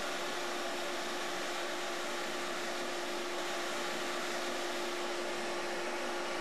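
Skate-sharpening machine running steadily, a constant whirring hiss with one held hum, as the blade is touched to the wheel for witness marks.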